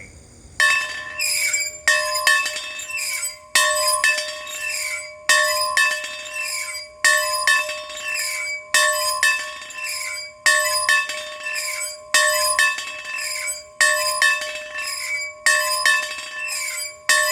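A bell rung over and over, a strong stroke about every second and a half to two seconds with lighter strokes in between, each left ringing.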